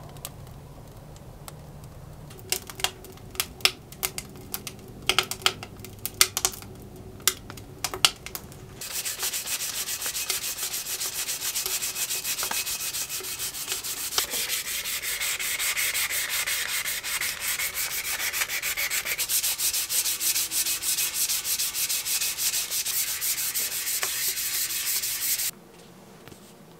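Wood stove fire with scattered sharp crackles and pops, then rapid back-and-forth hand sanding of a steel bicycle frame tube with a sanding pad. The sanding is the loudest part and cuts off abruptly near the end.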